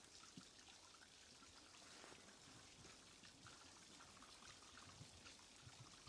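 Faint, irregular crunching and crackling of a giant panda chewing bamboo shoots.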